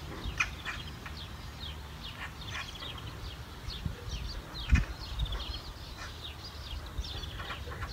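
Small birds chirping repeatedly in short, quick calls, over a steady low wind rumble on the microphone, with one low thump a little under five seconds in.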